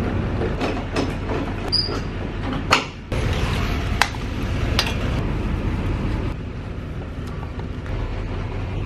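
Pickup truck engine idling with a steady low hum, while a boat trailer is hitched: several sharp metal clicks and clanks from the coupler and hitch pin, the loudest nearly three seconds in.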